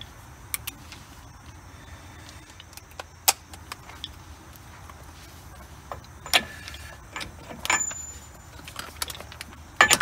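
Scattered metal clinks and knocks from a 35 mm axle-nut socket and hand tools being handled and fitted at a wheel hub, over a low steady hum.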